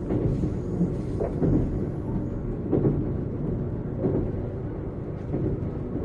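JR 455-series express-type electric train running, heard from inside the car: a steady rumble of wheels on rail, with a clack from the wheels crossing rail joints about every second and a half.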